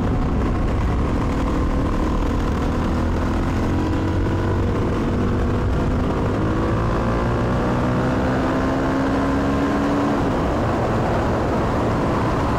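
Suzuki DRZ400's single-cylinder four-stroke engine under way on the road. Its pitch rises slowly as the bike gathers speed, then drops about ten seconds in as the throttle eases off, over a steady rumble of wind and road noise.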